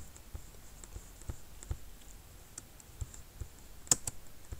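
Scattered light clicks of a computer mouse and keyboard, with two sharper clicks in quick succession about four seconds in.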